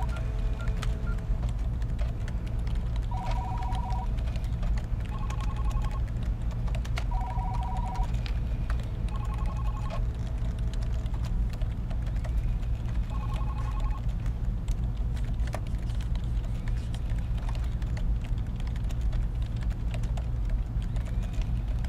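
Office ambience: a steady low hum of room noise with scattered keyboard typing clicks. Over it, telephones ring in short two-tone trills, about five rings spaced a couple of seconds apart in the first two-thirds.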